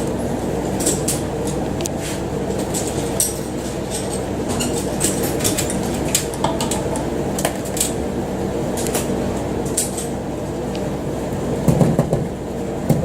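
A steady machine hum with scattered metallic clicks and clinks, and a few louder knocks near the end.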